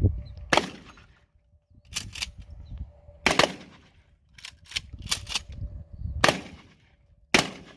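A 12-gauge shotgun fired repeatedly: about six shots one to two seconds apart, each with a short echo, and smaller clicks in between.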